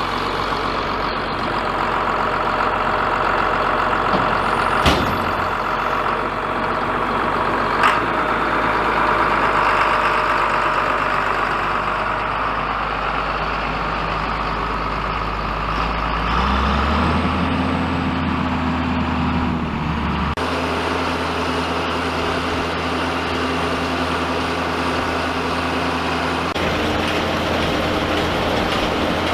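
Tractor engine running steadily, its hum stepping to a different pitch about 17, 20 and 27 seconds in. Two sharp clicks about five and eight seconds in.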